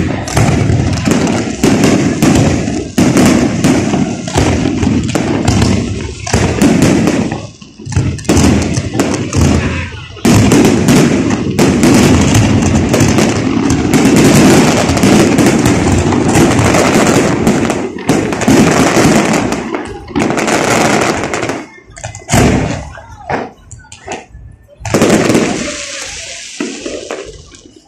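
Fireworks display: rapid, overlapping shell bursts and crackle, almost continuous through the middle, then thinning to separate bangs that die away near the end.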